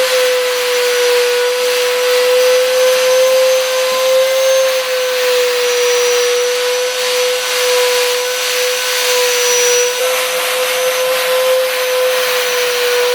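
Vacuum cleaner running steadily over car seat upholstery: a constant motor whine over a loud rush of air.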